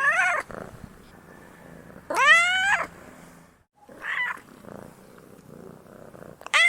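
Domestic cat meowing four times, the longest meow about two seconds in rising and then holding its pitch, with a low purr between the meows.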